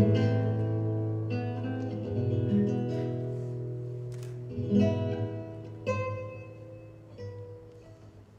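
Background music of acoustic guitar playing plucked notes and chords over a held bass note, dying away near the end.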